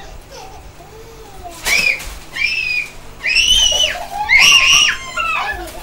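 Young children shrieking in play: four short, very high-pitched squeals in quick succession, with other voices lower down.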